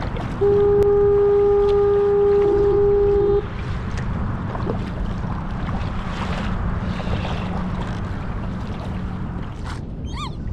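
A boat horn sounds one long steady blast of about three seconds, over wind and water noise on open sea. Near the end a bird calls twice.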